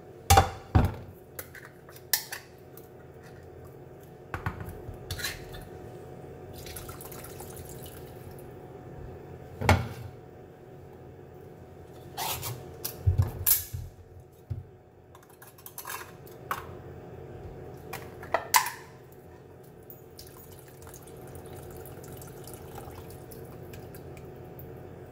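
Scattered clinks and knocks of a knife and ceramic plate as canned Vienna sausages are cut into pieces, over a faint steady hum. Near the end, liquid trickles from the sausage can into a rice cooker.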